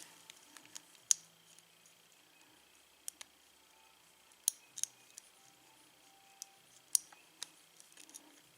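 Scattered small metallic clicks and ticks, a dozen or so at irregular intervals with quiet between them, from a tension wrench and pick being worked into a Master padlock's keyway.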